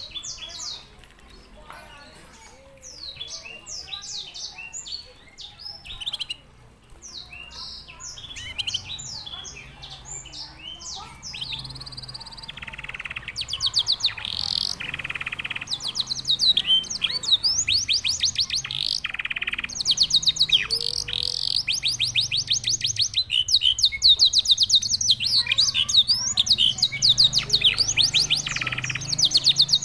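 Domestic canary singing: scattered quick chirps and short notes at first, then about halfway through long, fast trills broken by several held, steady whistled notes, louder in the second half.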